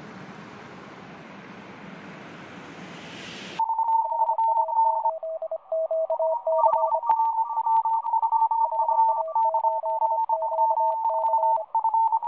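Road traffic noise for the first few seconds. It cuts off suddenly about three and a half seconds in to a run of electronic beep tones, keyed on and off and switching between a few pitches, with faint crackle.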